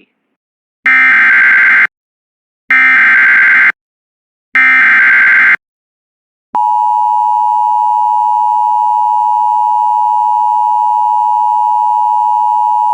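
Emergency Alert System tones. Three identical harsh, buzzing SAME header data bursts, each about a second long with a second's gap, identify the alert. After a pause comes the steady two-tone EAS attention signal, two pitches near 1 kHz sounding together, which holds through the end.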